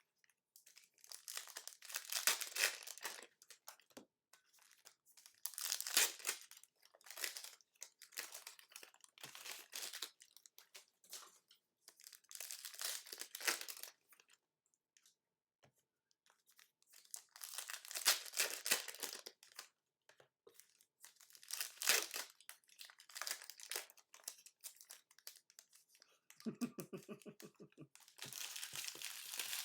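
Plastic wrapping on a hobby box and packs of Donruss Optic football trading cards being torn open and crinkled, in repeated crackling bursts with short pauses between them.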